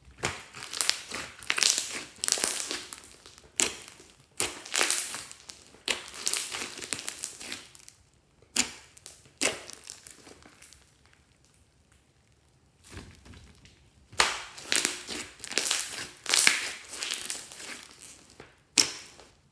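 Hands squeezing and pressing thick fluffy slime with foam beads mixed in, making runs of crackly, squishing noise as trapped air pops. There is a lull in the middle, broken by a couple of sharp pops.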